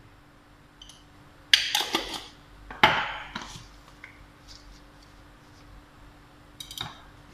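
Small spice jars and a spoon being handled over a cooking pot: two sharp clattering knocks about one and a half and three seconds in, a short rattle near the end, and a few small clicks between, over a faint steady hum.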